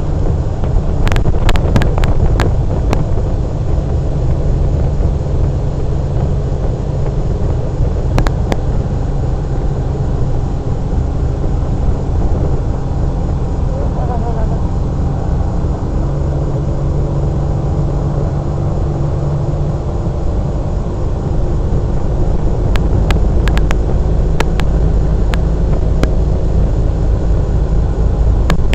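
Outboard motor running steadily at speed as a small motorboat planes across the water, with wind rumbling on the microphone. The engine note steps up slightly about halfway through, and a few sharp knocks come through now and then.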